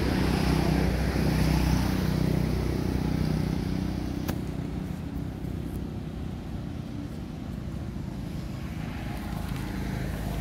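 A motor engine running steadily as a low hum, louder in the first few seconds and then fading away. A single sharp click comes about four seconds in.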